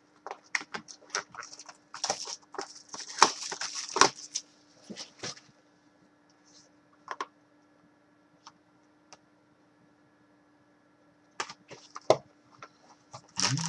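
Plastic shrink wrap being slit with a folding knife and peeled off a sealed hockey-card hobby box, crinkling and tearing in a dense run of rustles and clicks. After a pause, a few more rustles come near the end as the box is handled.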